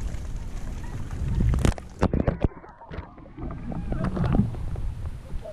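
Water splashing and sloshing over the camera, sprayed from a handheld suction-pump water shooter; about two seconds in the sound turns muffled for about a second as water covers the microphone, then the splashing comes back.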